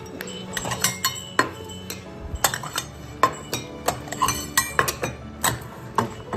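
Metal cat food bowl clinking and knocking as several cats eat from it, in quick irregular clinks.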